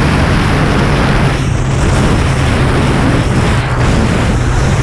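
Jet ski running at speed, a loud, steady engine drone under heavy wind buffeting on the microphone.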